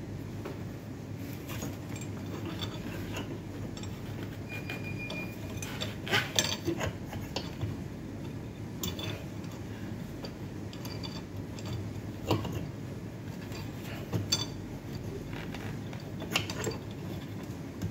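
Scattered small clinks and clicks of hands working among the tubing and metal fittings inside an autoclave: a cluster about six seconds in, then single sharp ones every few seconds, over a steady low hum.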